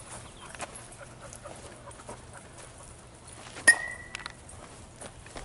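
A bat hitting a baseball once, about two-thirds of the way in: a sharp crack followed by a short, high ring.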